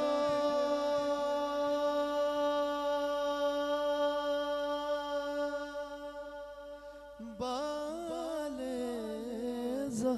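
A male singer of a Punjabi manqabat in praise of Ali holds one long, steady sung note for about seven seconds as it fades. About seven and a half seconds in he starts a new ornamented phrase, his pitch sliding up and down.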